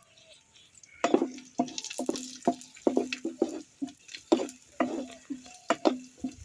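Spatula stirring and knocking against a metal kadai as cashews and raisins fry in ghee: a run of sharp knocks and scrapes, about two or three a second, many leaving a short ringing note from the pan. It starts about a second in.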